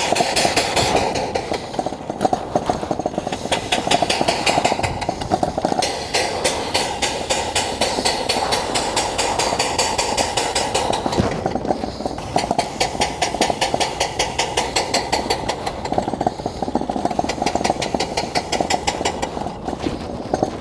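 Steam motorcycle's steam engine chuffing in a rapid, even rhythm as it is ridden, running on low boiler pressure.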